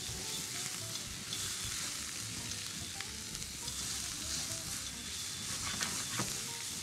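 Sliced leeks, carrots, mushrooms and garlic sizzling steadily in a nonstick frying pan as a spatula stirs and turns them, with a few light clicks of the spatula.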